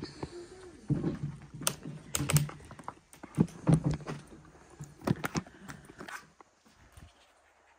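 Footsteps crunching over debris-strewn floor: an irregular run of clicks, crackles and dull thuds that dies away about six seconds in.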